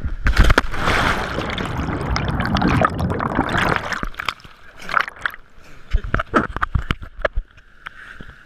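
Water splashing and rushing, loud for the first few seconds, then a run of shorter, sharper splashes and knocks.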